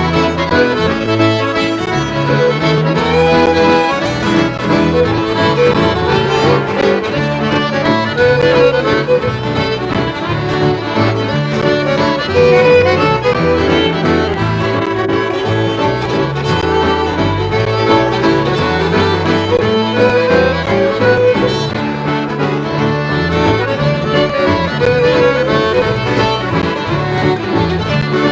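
Scottish traditional dance tune played on accordion and fiddle over guitar accompaniment, a steady lively set.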